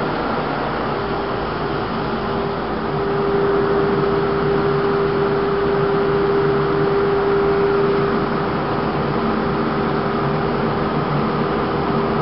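SCM Sandya 20 M2 135 double-head wide belt sander running: a steady machine hum with one steady tone through it, getting a little louder about three seconds in.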